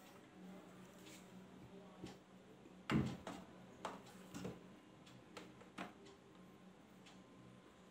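About seven scattered clicks and knocks from a wired gaming mouse and its cable being handled and set down on a desk, the loudest knock about three seconds in.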